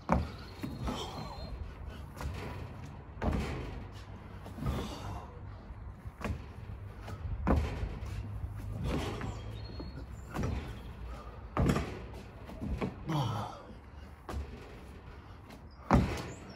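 Repeated thuds of feet landing and hands dropping onto a wooden deck during burpees over a barbell, one every one to two seconds, with the loudest thud near the end.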